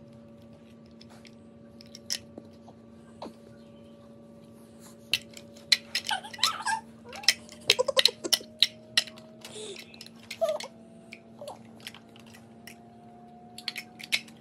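Large plastic toddler building blocks clicking and clacking against each other as a child picks them up and presses them onto a stack, in irregular bunches of knocks that are busiest in the middle. A few short high vocal sounds from the toddler come in about halfway through.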